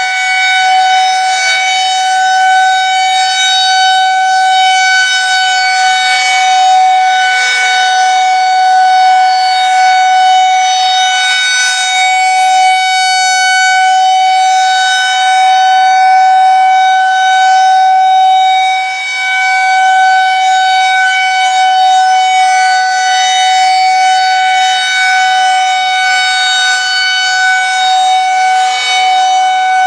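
Federal Signal 2001-130 rotating electromechanical outdoor warning siren sounding a loud, steady tone on its monthly test, the pitch holding level with one brief dip in volume about two-thirds in. The siren has activated properly on this test.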